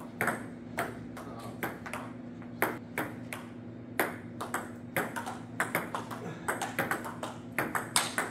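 Table tennis ball clicking sharply off paddles and the table in a rally, several irregular ticks a second.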